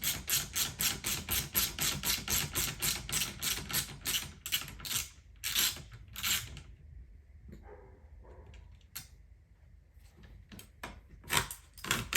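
Socket ratchet clicking quickly and evenly, about five clicks a second, as seat-rail bolts are undone. It slows to a few heavier strokes about six seconds in, then gives scattered lighter clicks and two sharp clicks near the end.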